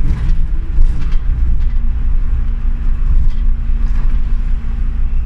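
City bus running along its route: a steady low rumble of engine and road, with a faint steady hum coming in about two seconds in.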